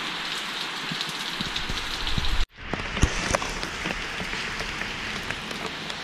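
Steady rain falling, an even hiss with drops ticking on surfaces close by. The sound cuts out for an instant about two and a half seconds in, after which the individual drop ticks are more frequent.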